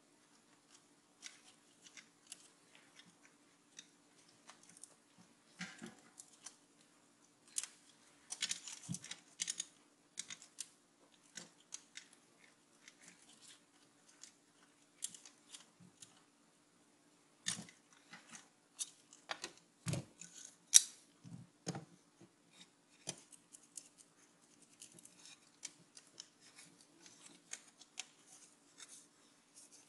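Irregular small clicks, taps and scrapes of the CD-ROM drive's plastic frame and parts and a screwdriver being handled as the drive is taken apart, with a denser run of clicks about a third of the way in and the sharpest click about two-thirds of the way through.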